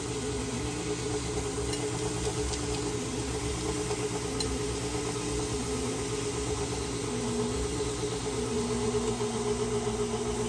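KitchenAid stand mixer motor running steadily while it drives the Spiralizer Plus attachment through an apple. Its hum wavers slightly in pitch as the load changes.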